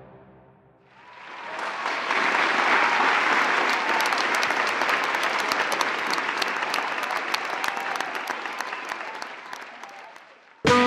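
Audience applauding: the clapping swells up over the first couple of seconds, holds, and then thins and dies away. Just before the end it cuts sharply to loud brass music.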